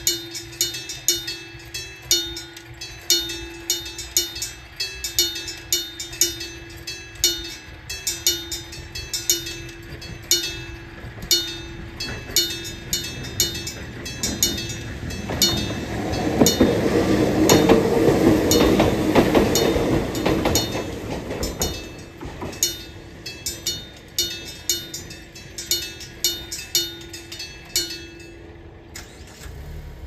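Electric-bell type railway level-crossing alarm striking its bell about twice a second, each stroke ringing on. About halfway through, a train passes over the crossing for several seconds, and the bell stops shortly before the end.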